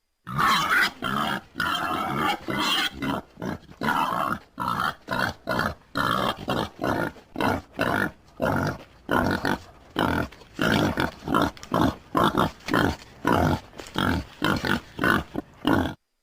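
Wild boar grunting in a long series of rough grunts. After a few longer ones at the start, they come at about two a second, then stop abruptly near the end.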